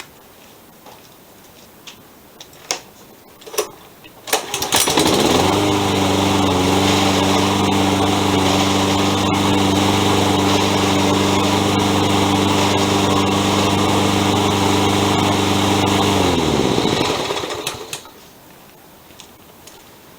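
Toro 20374 22-inch Recycler mower's engine catching after a few clicks about four seconds in, running steadily, then winding down to a stop near the end. The owner points to a grinding in this run, which he puts down to the rear drive wheels' worn plastic gear cogs.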